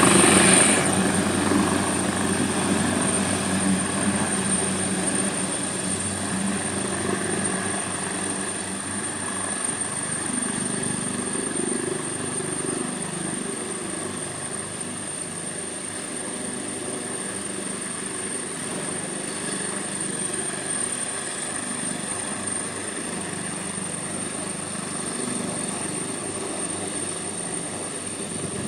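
Helicopter flying off after takeoff, its engine and rotor noise gradually fading over the first half and then holding steady at a lower level.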